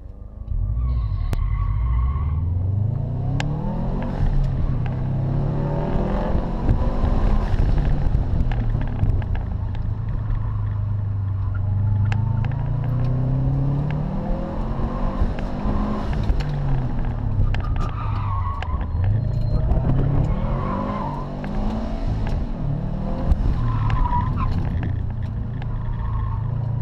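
Subaru Impreza's engine, heard from inside the cabin, pulls hard from a launch about half a second in, then its pitch climbs and drops over and over through gear changes and turns. Tires squeal through the corners, several times in the second half.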